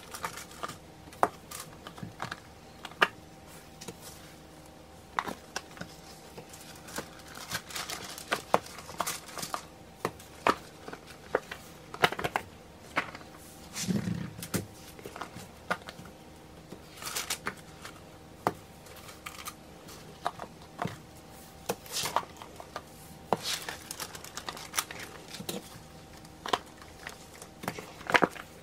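Irregular clicks, taps and crinkles as solid lotion bars are pushed out of flexible silicone moulds with plastic-gloved hands and set down on parchment paper, with one duller thump about halfway through.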